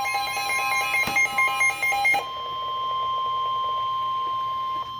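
Emergency alert tones: a rapidly pulsing, repeating alert tone, then about two seconds in a single steady tone. This is the attention signal that comes before a National Weather Service warning message is read.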